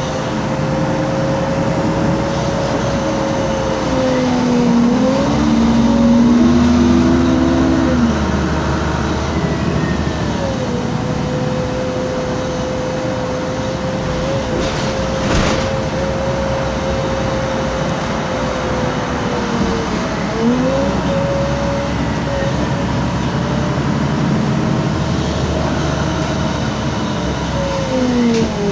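Interior sound of a MAN Lion's City G articulated bus on the move, its CNG MAN E2876 engine and ZF Ecolife six-speed automatic gearbox running under road noise. A steady whine dips in pitch and picks back up about four times as the bus changes speed.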